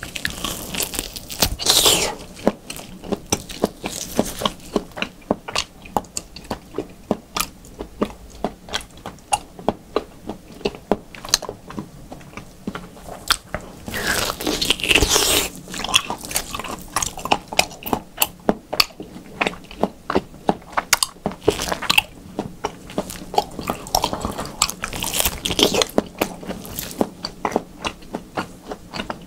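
Close-miked chewing of raw beef: a quick run of wet mouth clicks and smacks, several a second. Three louder, noisier stretches come where he bites into the slab of meat.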